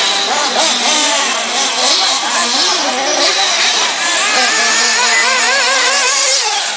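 Several 1/8-scale RC truggies' small two-stroke nitro engines racing, overlapping and constantly revving up and down in pitch as the cars brake and accelerate around the track.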